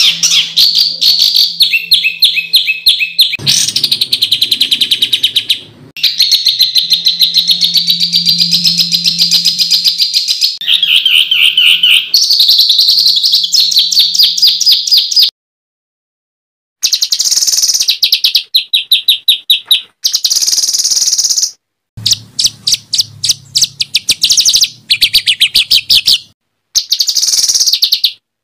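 Songbird song of fast, harsh repeated notes and rapid trills, high-pitched, in a run of spliced recordings that cut off suddenly with brief silences between them. This is the loud rapid-fire 'tembakan' singing used to tutor competition birds.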